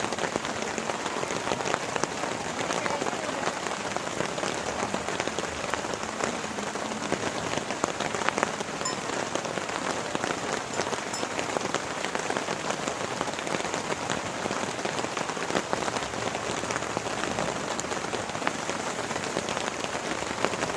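Heavy rain falling steadily, a dense patter of individual drops striking close by over the hiss of the downpour.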